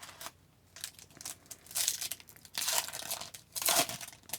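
Foil trading-card pack wrapper being crinkled and torn open, in several short crackling bursts.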